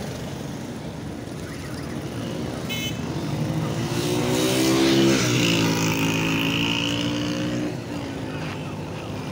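A motor vehicle passes close by. Its engine note builds and rises, then drops in pitch as it goes past about five seconds in, before fading over a steady background of street traffic.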